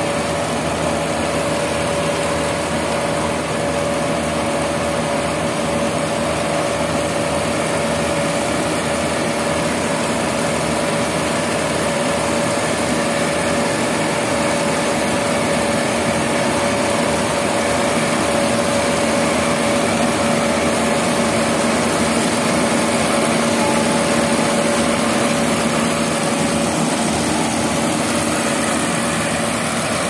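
Yanmar AG600A rice combine harvester running while cutting and threshing rice. Its diesel engine and machinery make a constant drone, with a steady whine over it.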